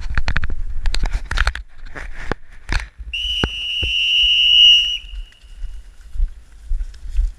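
A whistle blown once, a steady high tone held for about two seconds and growing louder before it stops, about three seconds in. Rustling and clicks come before it.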